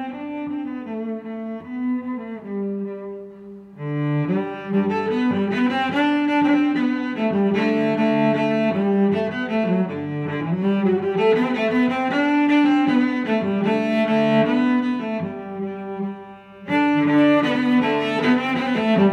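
Instrumental music playing, with short dips in level about four seconds in and again near the end.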